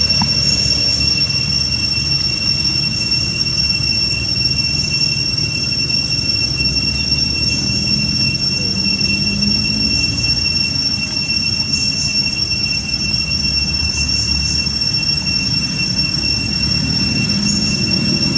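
Steady low rumble with a constant high-pitched whine over it, and a few faint short chirps.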